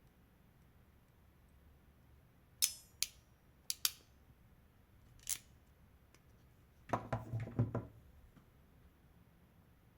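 Ratchet-driven crimping pliers handled and squeezed to crimp an XH connector pin onto a thin wire. A few separate sharp clicks come in the first half, then a quick run of clicks about seven seconds in as the handles close.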